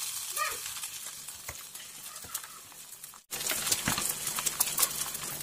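Beaten eggs sizzling in hot oil in a non-stick frying pan, a steady hiss with scattered crackles. The sizzle breaks off for an instant about three seconds in, then resumes with more crackling.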